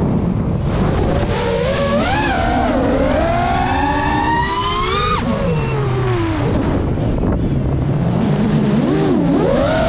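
Geprc Mark 5 five-inch FPV quadcopter's brushless motors and propellers whining, the pitch rising and falling with the throttle. It climbs over several seconds, drops sharply about halfway through as the throttle is cut, then rises again near the end.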